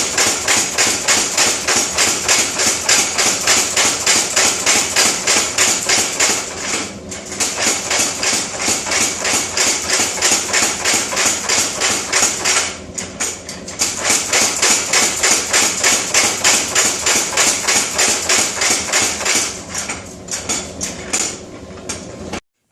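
Power hammer striking hot steel in a rapid, even run of blows. It pauses briefly twice, and the blows turn irregular near the end.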